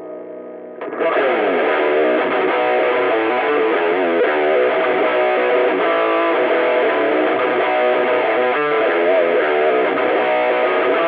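Distorted electric guitar playing the intro of a southern heavy rock song alone. A quiet held chord gives way about a second in to a louder riff with bent, sliding notes, with no drums or bass yet.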